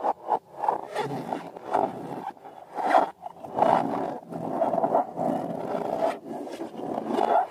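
Slime being squeezed and worked by hand, making irregular rubbery scraping and squelching strokes.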